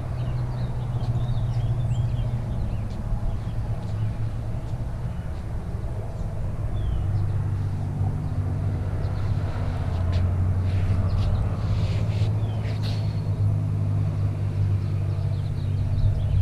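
A motor vehicle engine running steadily, a low hum that drops slightly in pitch about halfway through. Faint bird chirps and a few sharp clicks are heard over it.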